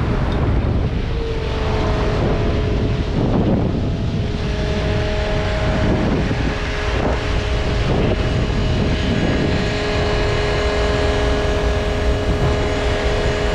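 Sportfishing boat under way at sea: a steady low engine rumble with wind and rushing water. From about a second in, a steady whine joins; about four seconds in it thickens into several held tones and runs on unchanged.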